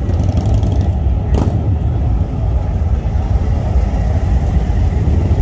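Harley-Davidson touring motorcycles' V-twin engines running at low speed as they ride slowly past, a steady, deep, loud engine sound.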